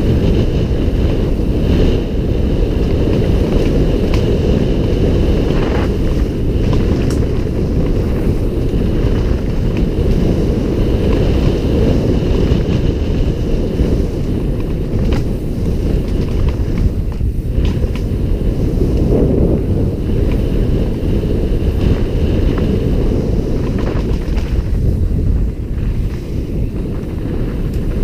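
Wind rushing over a helmet-mounted camera's microphone during a fast downhill mountain-bike descent, a loud steady low roar, with a few short knocks from the bike over the rough trail.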